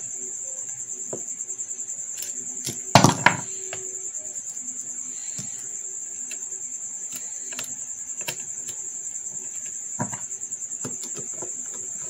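Screwdriver and steel DVR case being worked as a hard disk is screwed to its base plate: scattered small metal clicks, with a loud clatter about three seconds in and another knock near ten seconds. A steady high-pitched chirring sits underneath.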